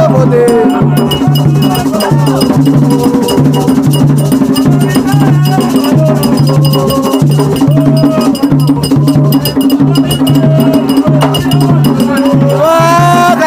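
Ceremonial drumming: large skin-headed hand drums beaten in a steady repeating rhythm, with a metallic ringing percussion over it and voices singing along.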